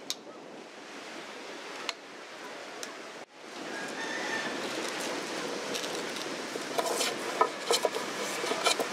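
Steady outdoor background hiss, joined in the second half by a run of sharp knocks and short scrapes from a wooden hand plane being worked on the hull timber.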